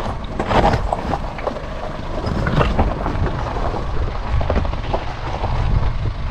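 Force Gurkha's diesel engine pulling at low speed as it crawls over loose rocks, with tyres crunching and stones crackling under them. A low rumble of wind buffets the microphone throughout.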